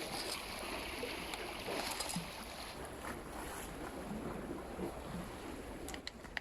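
Steady wash of sea waves and wind on the microphone, with a few small clicks near the end.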